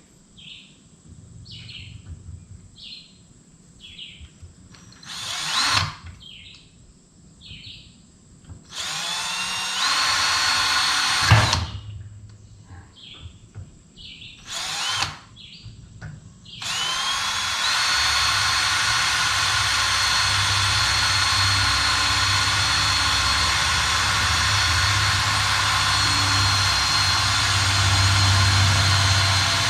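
Electric drill spun up in a few short bursts, then held running steadily with a constant whine for a long stretch, drilling a hole.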